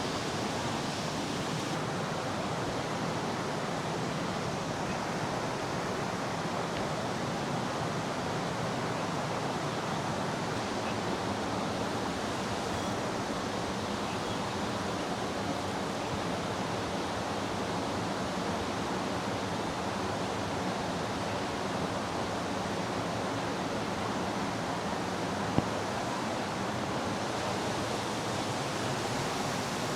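Forest stream running, a steady rush of water, with a single sharp click near the end.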